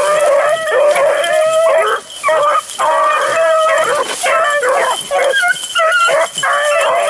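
A pack of beagles baying on a rabbit's track, several voices overlapping in a steady chorus of howling bays.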